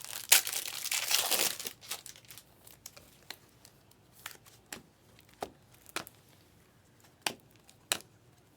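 Foil trading-card pack wrapper crinkling and tearing open, then the cards snapping one after another as they are flipped through: short sharp ticks every half second to a second.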